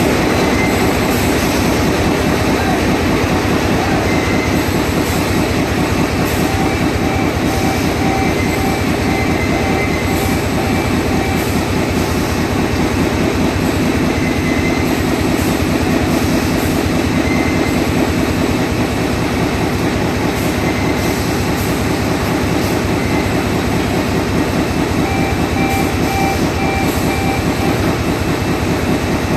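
Dinglong FFG-TP920 flexo printer folder gluer running in production: a loud, steady, fast rhythmic mechanical clatter. Short runs of rapid beeping come twice, about a third of the way in and again near the end.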